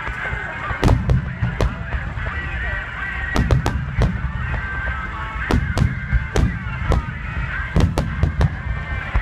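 Fireworks display: a rapid series of sharp bangs from shells bursting, some in quick clusters, over a continuous low rumble.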